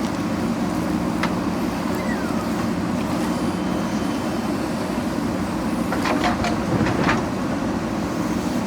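JCB backhoe loader's diesel engine running steadily. A few sharp knocks come about six to seven seconds in.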